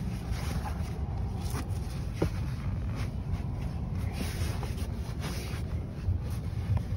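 Fabric rustling and scraping as a quilted seat cover is worked down over a truck's rear seat back, with a few faint clicks, over a steady low rumble.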